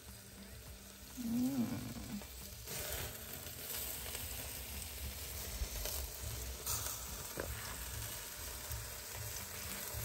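Sausages and corn sizzling on a grill over a small open fire, a steady crackling sizzle.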